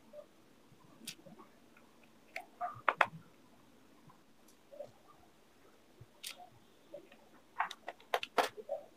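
Small screwdriver clicking and scraping on the screws in the plastic base of an aquarium air pump as they are driven back in, with light knocks from the casing being handled. Scattered sharp clicks at irregular times, the loudest about three seconds in and a quick cluster near the end.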